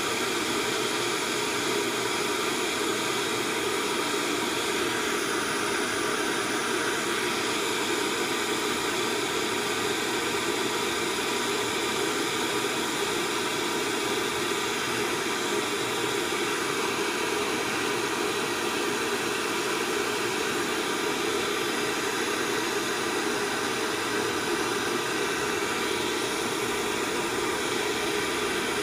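Hose-fed brass hand torch burning with a steady flame: an even, unbroken rushing hiss of burning gas.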